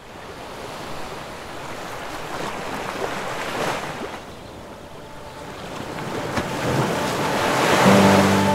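Ocean waves surging and washing in, swelling to a peak, easing off and swelling again. Music comes in near the end.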